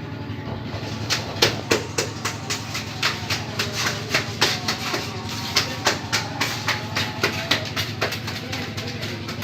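Rapid sharp knocks, about three a second and uneven, over a steady low engine hum, typical of work on a road building site.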